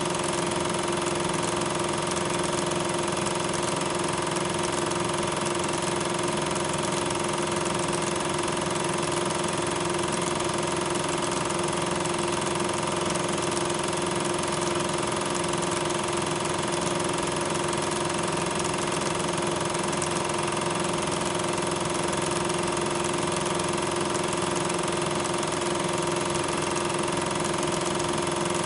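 Steady, unchanging mechanical drone of a film projector's motor running during the transfer of silent 8mm film, with a few constant tones over a noisy whir.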